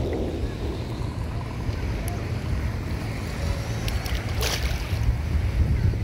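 Wind buffeting the microphone over shallow sea water lapping at the shore. A short sharp hiss comes about four and a half seconds in.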